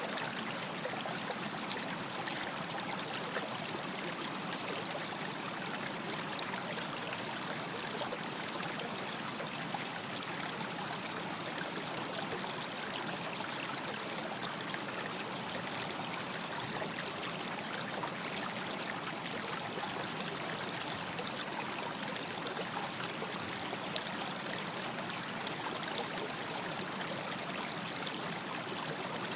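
Stream water running and trickling over stones, a steady rush with small splashes and drips.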